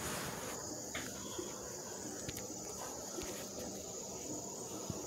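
Insects chirring steadily at a high pitch, with a few faint clicks.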